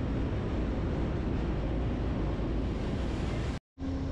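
Steady low rumble and hiss of a passenger train standing at the station platform, mixed with some wind on the microphone. Near the end the sound cuts out for a split second.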